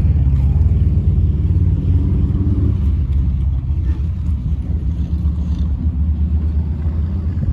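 Motorcycle engines on the road, a loud low rumble that slowly fades toward the end.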